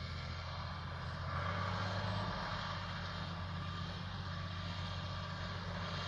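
1965 Ford 4000 tractor's three-cylinder engine running steadily as it pulls a plow, heard from a distance as a low drone that swells briefly about a second and a half in.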